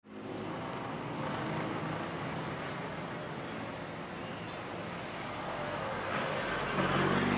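Outdoor city ambience: a steady wash of noise with a motor's low hum, which grows louder about six seconds in.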